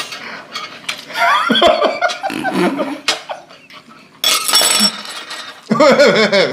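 A man and an older woman laughing hard in several bursts, the woman laughing through a mouthful of noodles with her hand over her mouth. There is a breathy, hissing burst a little past the middle.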